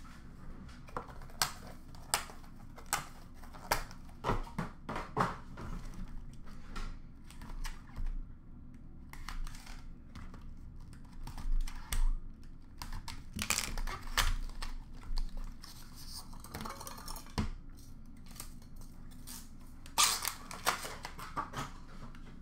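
Hands opening a Leaf Ultimate Hockey card box and handling its contents: irregular clicks, taps and rustles of cardboard, wrapping and plastic card holders, with a longer rustle of packaging near the end.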